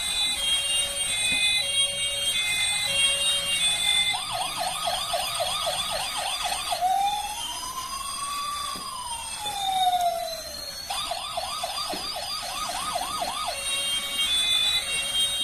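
Electronic toy siren cycling through its patterns. It opens with stepped beeping tones, then a fast warbling yelp at about four cycles a second from around four seconds in. One slow wail rises and falls, the yelp returns, and the stepped tones come back near the end.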